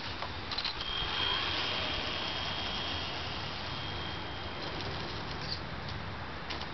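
Electric RC truck driving: a steady high motor whine over a noisy hiss, with a few clicks near the start; the whine stops about four and a half seconds in.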